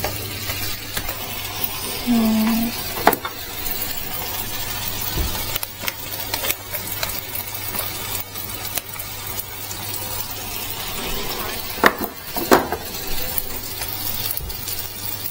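Orzo with tomatoes frying in a pan on a hob, a steady sizzle under a low hum that stops near the end. A few sharp clicks come through about three seconds in and again twice near twelve seconds.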